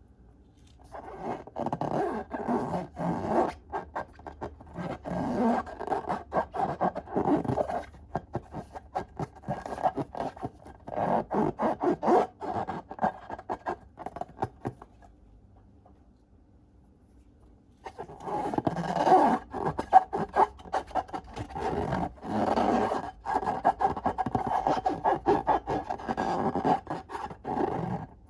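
Slime being squished, stretched and mixed by hand: dense sticky crackling and rubbing. It starts about a second in, stops for a few seconds about halfway, then resumes.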